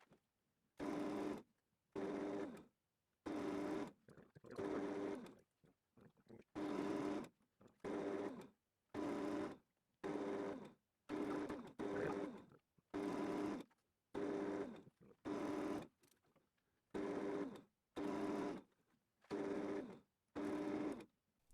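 Small metal lathe running while cutting a thread on a spindle shaft: about twenty half-second bursts of steady motor hum and whine, each cut off by dead silence.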